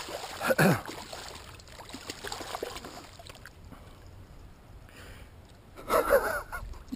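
A man's gasping exclamation, falling in pitch, about half a second in, and another loud vocal outburst about six seconds in, over faint splashing of water as a hooked fish thrashes in the shallows at the bank.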